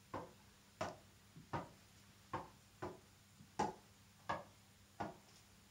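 Tennis ball bounced up off a racket's strings in a keep-up, one faint sharp tap about every 0.7 seconds, nine or so in a row.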